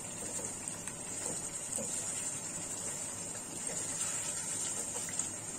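Wooden spatula stirring thick chicken korma gravy in a non-stick kadai: soft scrapes and a few faint small pops over a steady high hiss.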